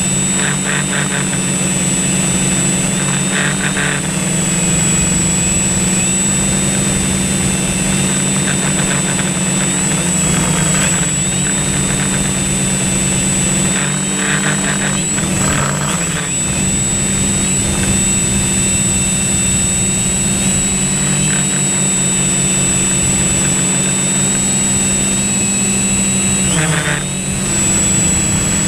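Multirotor drone's motors and propellers humming steadily, with a constant high whine above. The pitch dips briefly about halfway through and again near the end as the drone manoeuvres.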